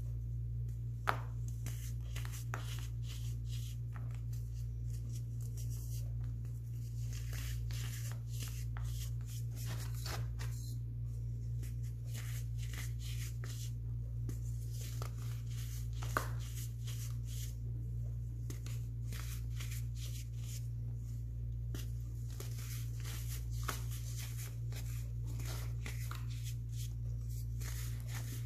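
Dried, sky-blue dyed baking soda chunks crushed and crumbled between the fingers: a continuous run of dry crunches and crackles, with a sharper snap about a second in and another about halfway through. A steady low hum runs underneath.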